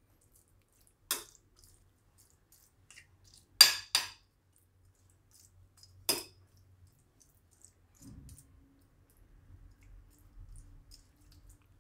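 Metal spoon clinking against a glass mixing bowl while stirring curd rice: four sharp clinks, two of them in quick succession about halfway through.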